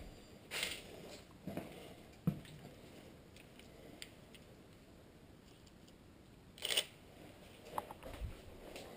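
Footsteps and short crunches on a floor littered with paint chips and debris, with a few light knocks, spaced out by quiet stretches; the loudest crunch comes near the end.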